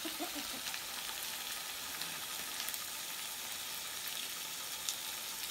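Meat and vegetables frying in a pan on a portable gas stove: a steady sizzling hiss with a few sharp pops, one about two and a half seconds in and one near the end.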